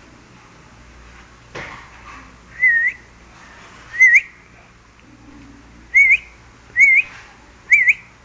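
A person whistling five short notes about a second apart, each dipping and then rising sharply. There is a single sharp knock about a second and a half in.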